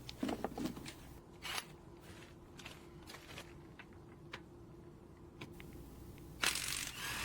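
Faint scattered clicks and knocks over a low steady hum, with a brief noisy burst about six and a half seconds in.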